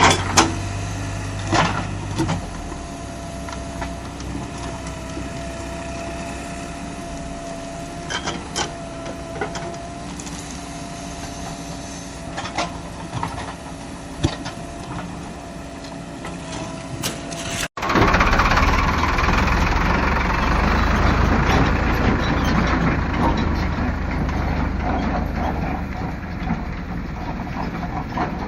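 Diesel engine of a JCB 3DX backhoe loader running steadily while working, with scattered sharp knocks and clanks. About two-thirds of the way through it cuts abruptly to a louder, rougher engine sound.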